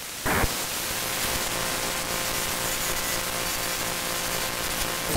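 Shortwave radio static from a software-defined radio in AM mode being tuned between stations: a steady hiss with faint whistling tones, and a brief rising sweep just after the start.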